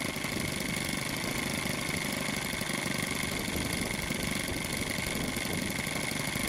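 Small engine of an RC model Cessna 182 idling steadily on the ground with its propeller turning, while it is being tuned after break-in.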